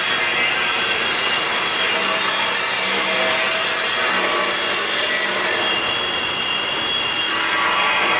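Steady mechanical whirring of a hydraulic welding positioner's power unit running as the positioner arm tilts a steel workpiece.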